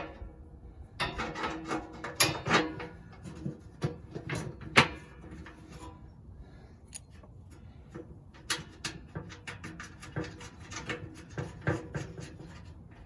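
Irregular metal clinks, taps and light scraping of hardware and hand tools being handled, some strikes ringing briefly, while a nut is worked onto a fastener of a leaf blower's housing cover.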